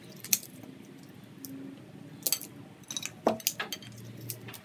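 A few light clinks and taps of crisp fried papdi being picked off a ceramic plate and set onto a bowl of chaat, spread out with a small cluster near the end.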